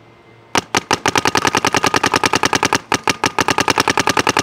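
Paintball marker with a 15-inch HK Army XV one-piece barrel firing a long rapid string of shots, about twelve a second, with a brief break about three seconds in.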